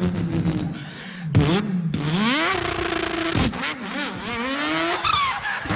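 A man imitating a car engine with his voice. A steady idling note gives way to revs climbing in rising pitch, held briefly, then broken off and climbing again, like an engine shifting up through the gears.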